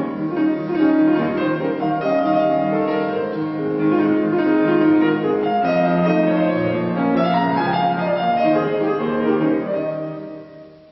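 Grand piano playing an opera aria's accompaniment on its own, without the voice, with chords and running notes that die away near the end.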